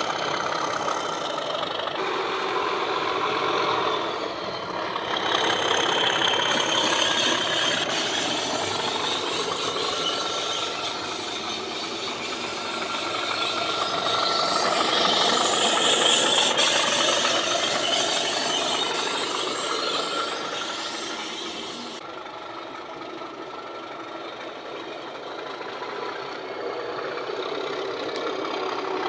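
Class 37 diesel engine sound from a model locomotive's DCC sound decoder (Legomanbiffo's West Highland Class 37 sound file on an ESU LokSound V5), played through small on-board speakers as the models run. The engine note swells to its loudest around the middle, then drops suddenly and carries on quieter.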